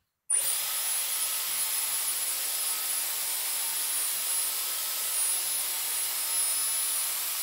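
Dyson Airwrap hair styler switching on abruptly just after the start, then running steadily with a 40 mm curling barrel fitted: a loud rush of air with a thin, steady high-pitched whine from its motor.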